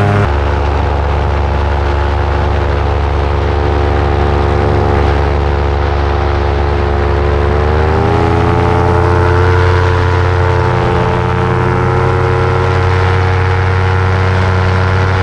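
Paramotor engine and propeller running steadily in flight, a steady drone whose pitch rises between about six and eight seconds in as the throttle comes up, then holds higher.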